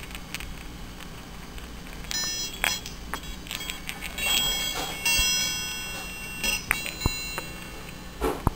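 50 mm Dragon and Phoenix Baoding balls (Chinese health balls) chiming as they are turned and handled: high, bell-like ringing from the chimes inside, starting about two seconds in, mixed with several sharp clicks as the metal balls knock.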